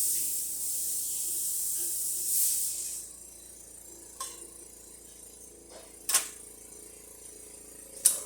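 Rancilio Silvia espresso machine letting off a loud, high hiss of steam or pressure for about three seconds. Then come three sharp clicks or knocks, about two seconds apart.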